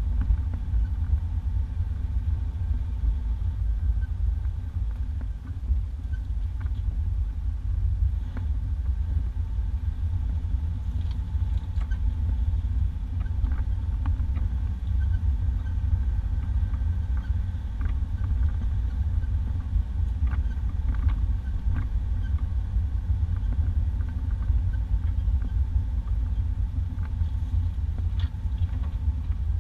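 1991 Isuzu Trooper driving on a dirt two-track, heard from inside the cab: a steady low engine and road rumble with scattered light knocks.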